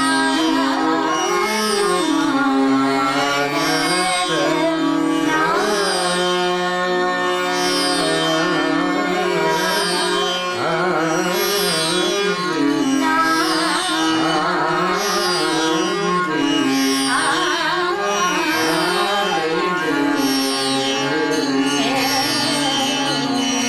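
Hindustani classical music: a tanpura-like drone of plucked strings, its strings sounding in an even repeating cycle about every second and a half, under a slow melodic line that glides between notes.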